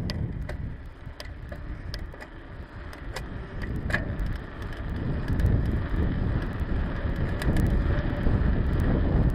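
Wind buffeting a handlebar-mounted camera microphone as a bicycle rolls along an asphalt road, with a low rumble and scattered small clicks and rattles from the bike. The rush eases for a few seconds, then grows louder again about halfway through.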